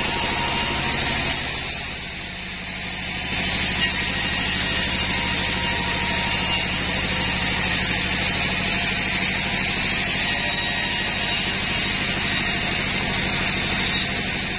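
Sawmill machinery running steadily: a motor's low, even hum with a hiss above it, easing off for a moment about two seconds in.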